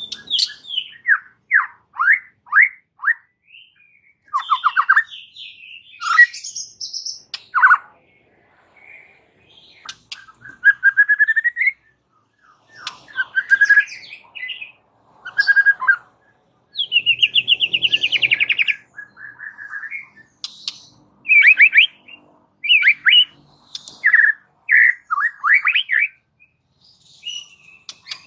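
White-rumped shama (murai batu) singing its full 'gacor' song: a long run of varied whistled phrases and rapid trills in bursts of a second or two, with short pauses between them.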